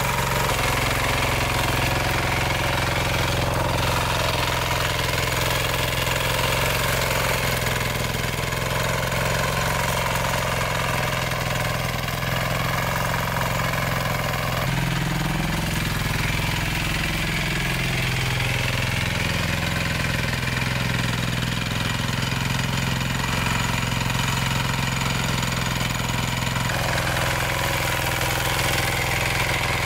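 A small engine running steadily, its note bending up and down about halfway through and shifting again near the end.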